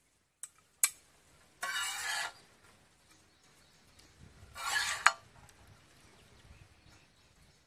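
Metal spatula tossing and scraping stir-fried noodles on a large pan: two sharp clinks near the start, then two short scraping swishes about two and five seconds in, the second ending in a loud clink.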